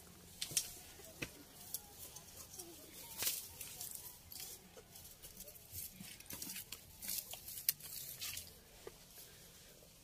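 Faint, scattered scrapes, knocks and rustles of a hiker scrambling up rock among bamboo, with handling noise of a body-worn camera.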